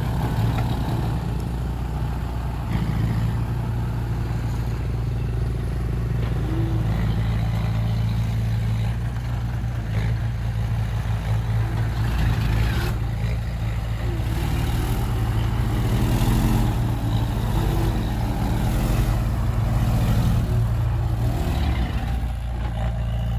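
Heavy construction vehicle's diesel engine running steadily with a low hum, with a few brief clattering knocks over it.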